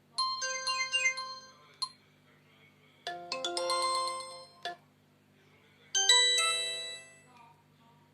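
Alcatel One Touch 2007D mobile phone's loudspeaker playing three short melodic alert tones in turn, each about a second and a half long with a pause of about a second between them. These are its SMS message tones.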